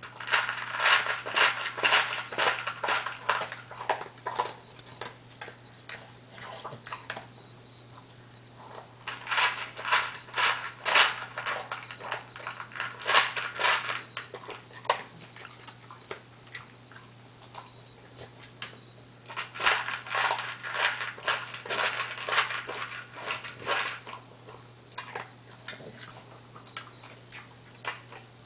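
Cocker spaniel crunching dry kibble from a plastic tub, in three bouts of rapid crunching with pauses of a few seconds between.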